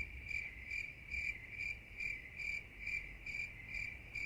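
Insect chirping in a steady, even rhythm, about two and a half high chirps a second.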